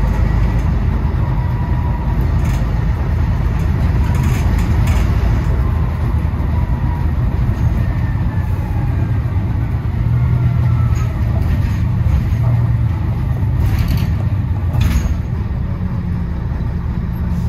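London bus engine running with a steady low hum, with a few brief clicks or rattles and two sharper ones near the end.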